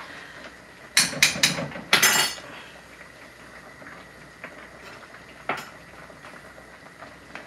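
Cooking utensil clanking against a metal pan of simmering steak: four or five sharp knocks in quick succession about a second in, then a single clink about five and a half seconds in.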